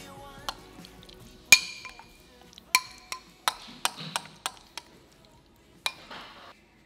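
Metal spoon clinking against a small glass bowl and the container while scooping and scraping tuna salad: about ten sharp clinks with a short ring, the loudest about a second and a half in, then a brief scrape near the end.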